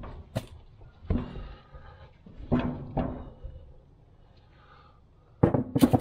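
Steel pry bar levering a tractor's rear wheel and tire up onto the hub: several dull knocks and thunks, then a louder metallic clatter with a short ring near the end as the bar is let go.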